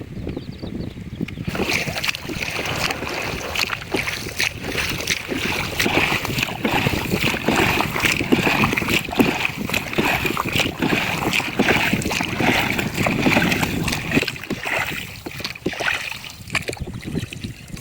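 Water splashing and rushing, with many small crackling splashes, starting about a second and a half in and easing off near the end.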